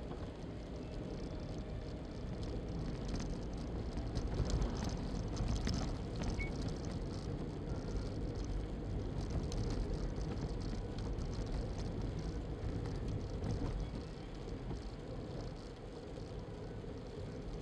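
Road noise from a moving car on a wet road: a steady low rumble of tyres and engine, with scattered faint clicks a few seconds in.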